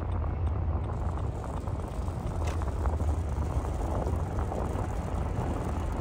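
Steady low rumble of road, engine and wind noise inside a moving car's cabin as the car picks up speed.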